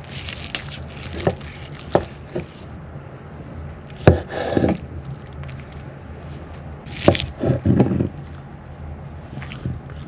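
Cooking utensils knocking and scraping: a few sharp knocks early on, then two louder bouts of clatter and scraping, over a steady low hum.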